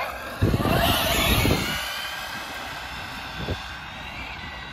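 ARRMA Felony 6S brushless RC car on a flat-out speed run, its motor giving a high whine that is loudest in the first second and a half, then fading away.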